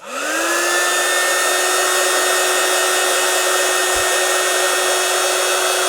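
Heat gun switched on, its fan motor spinning up with a rising whine, then blowing steadily with a steady whine over the rush of air, shrinking heat-shrink sleeving over a soldered cable joint.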